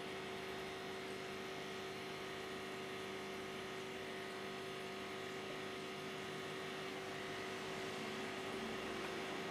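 Steady hum from running aquarium equipment: a constant low tone over an even faint hiss that does not change.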